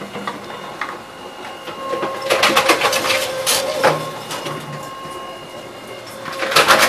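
Tomra T-63 reverse vending machine running with a steady motor hum. Plastic bottles clatter and rattle through it in two bursts, one about two seconds in and one near the end.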